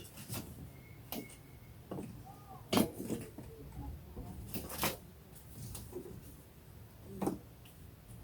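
Scattered knocks and clicks of sticks and twigs being handled and laid on a small pile of kindling to build a campfire, the loudest two about three and five seconds in.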